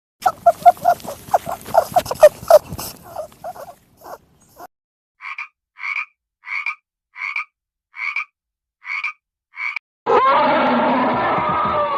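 Frog croaking: a fast run of loud, pulsing croaks for about four seconds, then a slower series of eight short, higher calls, evenly spaced about half a second apart. About ten seconds in, a different, louder and continuous animal call begins.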